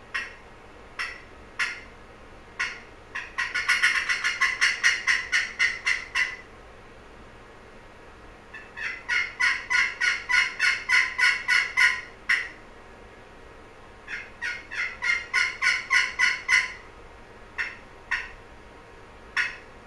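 Osage orange scratch box turkey call worked with an Osage striker, giving turkey-like notes. Scattered single notes alternate with three fast runs of many quick notes.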